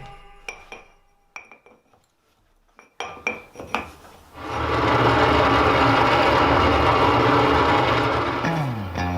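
Several sharp, ringing metal-on-metal clinks of blacksmithing tools on steel. A few seconds in, a loud steady motor noise starts and runs for about four seconds. Music comes back in near the end.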